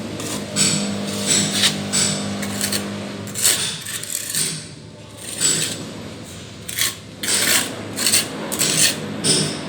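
Plastering trowel scraping and rubbing over a wall in repeated rasping strokes, about one or two a second, with a lull in the middle.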